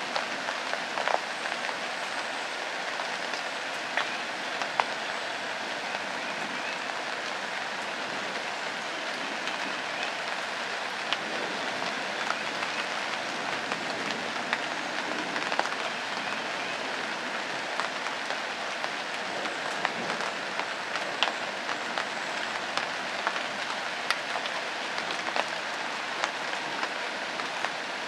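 Steady rain falling on leaves and ground, an even hiss with scattered sharper ticks of single drops.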